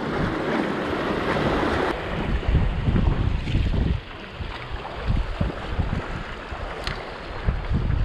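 Sea surf washing over shore rocks, with wind buffeting the microphone in irregular low gusts.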